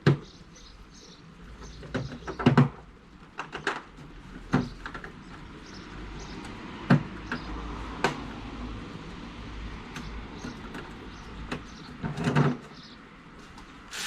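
Tools and parts being handled and packed away: irregular knocks and clatters, about a dozen sharp ones spread out, the loudest a cluster about two and a half seconds in and another near twelve seconds.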